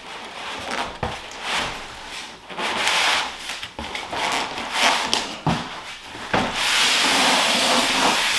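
Polystyrene packing and cardboard scraping and rubbing as a packed oven is slid out of its carton: a run of short scuffs and knocks, then one long continuous scrape in the last two seconds.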